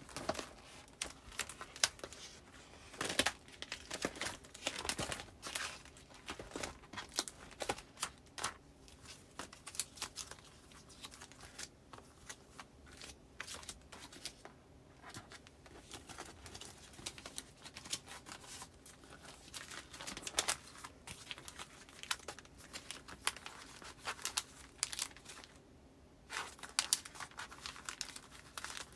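Paper postcards and plastic file sleeves rustling and crinkling in irregular bursts and small clicks as the cards are handled and slipped into a binder.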